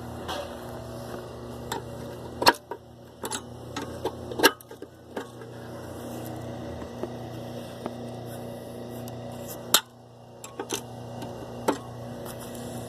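Handling noise from a camera being fiddled with on a makeshift holder: scattered clicks and knocks, a few of them sharp, over a steady low hum.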